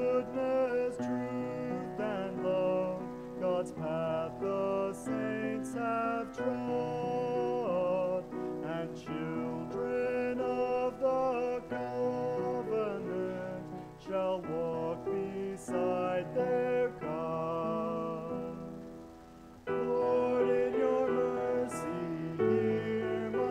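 A male cantor singing a liturgical chant with vibrato over sustained instrumental chords. The music fades briefly about three-quarters of the way through, then resumes.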